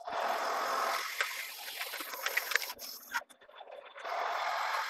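Lathe tool cutting across the face of a large 1018 hot-rolled steel disc: a steady hiss of the cut with crackling chips, dropping away briefly about three seconds in.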